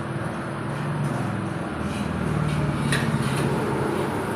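Metal ladle scraping and clinking against a wok as fried rice is stir-fried, a few sharp clinks standing out in the second half, over a steady rumbling background noise.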